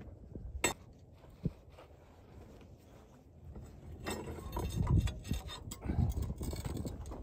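Metal tools clinking and scraping against the steel press plate of a compressed earth block machine as a screwdriver and pry bar work it loose. A sharp clink comes about half a second in, and irregular knocks and scrapes follow from about four seconds on.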